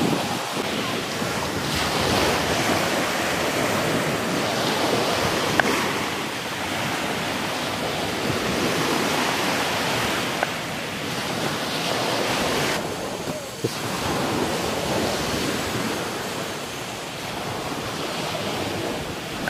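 Surf breaking on a beach, mixed with wind: a steady rushing noise that swells and ebbs every few seconds. A few sharp taps of a knife on a wooden chopping board stand out above it.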